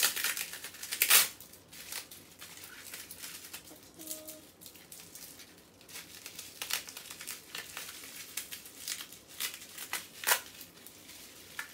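Plastic bubble wrap crinkling and rustling in the hands as a small package is unwrapped, with irregular sharp crackles, the loudest about a second in and again near the end.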